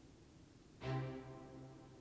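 Cinematic background music: a quiet stretch, then a sustained chord comes in sharply just under a second in and holds, slowly fading.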